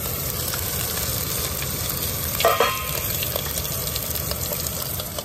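Ribeye steak sizzling as it sears in a very hot stainless-steel pan: a steady frying hiss, with one brief sharper sound about halfway through.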